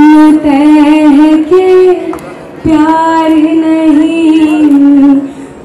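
A woman singing into a microphone through a PA, holding long notes in two phrases with a short break about two seconds in.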